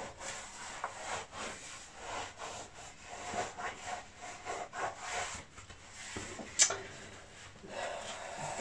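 Faint rubbing and rustling of objects being handled, in irregular soft strokes, with one sharp click about six and a half seconds in.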